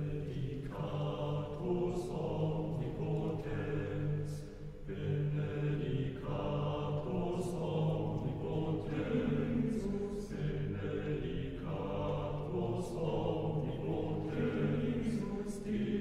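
A choir singing slow, sustained chords, each held for a few seconds before moving to the next, with soft hissing consonants now and then.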